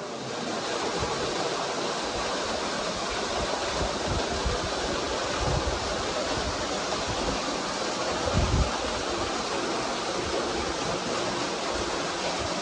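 Small waterfall splashing steadily into a shallow rock pool, with a couple of brief low rumbles about halfway through.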